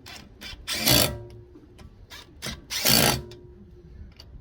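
Metal tools clanking and clattering, as when someone rummages through a toolbox: two loud clatters, one about a second in and one near three seconds, with smaller clicks between them. Music plays faintly underneath.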